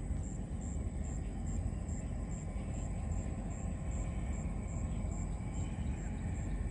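Night waterside ambience: a steady low rumble, with a high-pitched chirp pulsing evenly about two and a half times a second, typical of a night insect.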